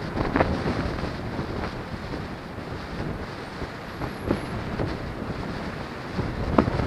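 Wind buffeting the microphone of a handlebar-mounted camera on a moving bike, a steady rumbling rush. A few sharp knocks break through, the loudest near the end.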